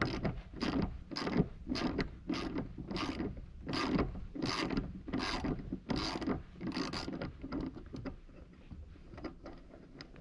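Hand ratchet wrench being worked back and forth to undo a bolt, a short rasping run of clicks on each of about ten strokes, then only a few faint clicks near the end.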